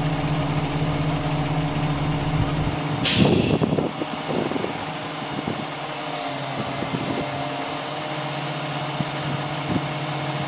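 Truck-mounted crane's engine running steadily, with a loud hiss lasting under a second about three seconds in; after it the engine's low drone is weaker.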